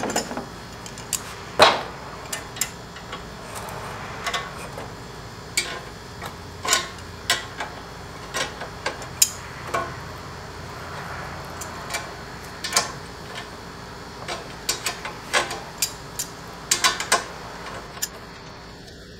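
Irregular metallic clicks, taps and clinks as a new car AC condenser is handled and its mounting brackets are worked with a small hand tool. The loudest is a sharp knock about one and a half seconds in, over a steady background hum.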